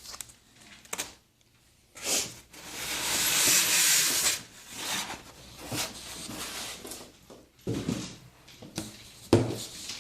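Hands handling a monitor's cardboard box and packing: a long rustling, sliding sound from about two seconds in, then softer rubbing and several sharp knocks near the end.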